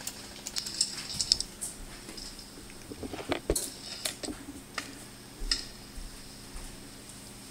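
Airsoft guns firing in a woodland skirmish: scattered sharp clicks and snaps at an irregular pace, the loudest cluster about three and a half seconds in.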